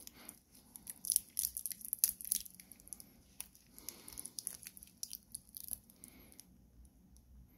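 Handling noise as two steel-bracelet wristwatches are picked up off a cloth: a run of short crinkles and rustles from the cloth and the blue plastic protective film on one bracelet. It dies away about six seconds in.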